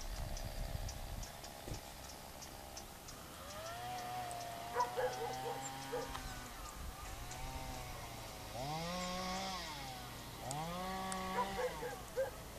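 A cow mooing several times in long, low, drawn-out calls. The first call is long and fairly flat, and the later ones rise and fall and are pitched higher, coming about every two seconds.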